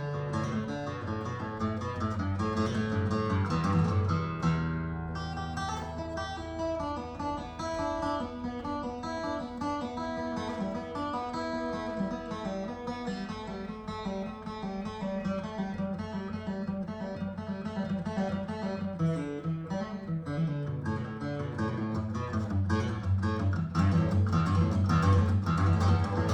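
Yamaha FG5 solid-spruce, solid-mahogany dreadnought acoustic guitar being played: strummed chords at first, then a stretch of picked single notes and chords, building back to louder strumming near the end.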